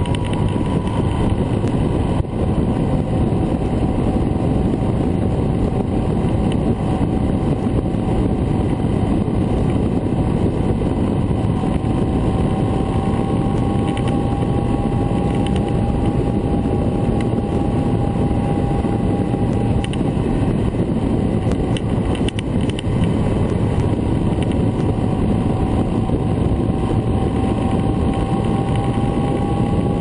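Honda CB1300 Super Bol d'Or's inline-four engine running steadily at highway cruising speed, mixed with a dense rush of wind and road noise.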